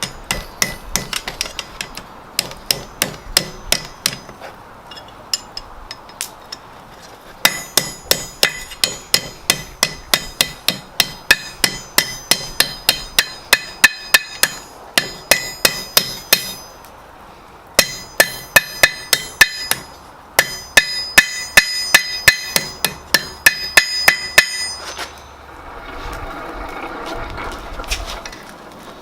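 Blacksmith's hammer striking hot wrought-iron bar on an anvil in quick runs of about three blows a second, each blow with a bright metallic ring, with short pauses between runs. Near the end the hammering stops and a softer rushing noise takes over.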